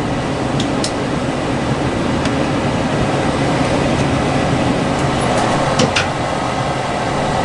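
Lennox Elite series two-stage gas furnace running with its burners lit: a steady rumble of flame and fan. A few faint clicks come through about a second in and again near six seconds.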